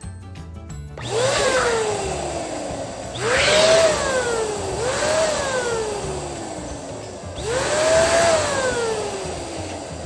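Electric balloon pump inflating a long spiral balloon, its motor started in four surges about a second in. Each time it rushes air with a whine that jumps up in pitch and then sinks slowly.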